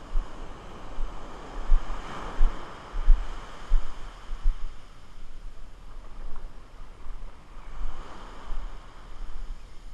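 Small surf washing up the beach, swelling twice, with wind buffeting the microphone in low, uneven rumbles.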